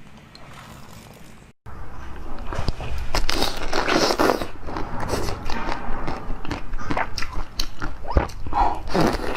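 Close-miked eating: a person biting into and chewing food, with dense crackly, wet snapping and clicking that starts suddenly after a faint opening second and a half.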